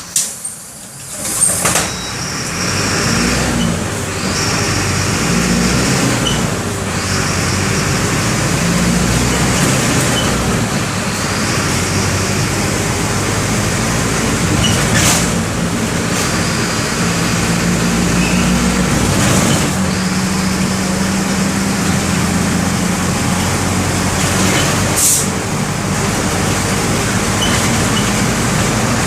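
Mercedes-Benz OM 924 LA four-cylinder diesel of an OF-1519 BlueTec 5 bus running under way, heard from aboard the bus, its engine note rising and falling with engine speed. A few short hisses of air break in, about a second and a half in, around the middle, and near the end.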